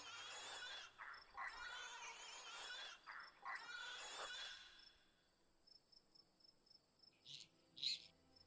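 Wild boar piglet squealing in distress, a series of wavering squeals as it is seized by a fox. The squeals stop after about five seconds, and a couple of short high chirps follow near the end.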